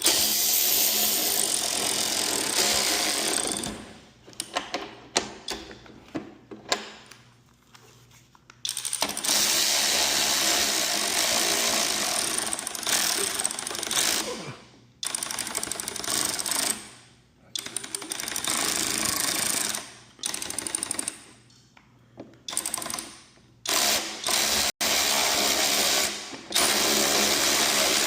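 Power driver running in several long bursts, driving bolts into garage door hardware, with short clicks and clinks of the metal parts being handled between the bursts.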